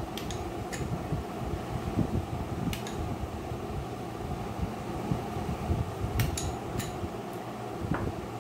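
A metal spoon clinking lightly against a glass bowl several times as thick curd is scooped out and scraped off onto raw chicken pieces, over a steady background hum.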